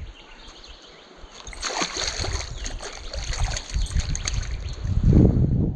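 Irregular water splashing and sloshing mixed with crackly handling noise, with a louder low rumble near the end.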